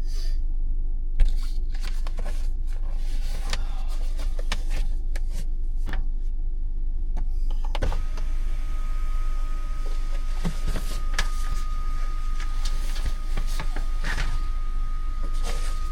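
Tesla cabin climate system fan blowing steadily on high heat in camp mode, a constant low rumble with scattered light clicks; a faint steady tone comes in about halfway.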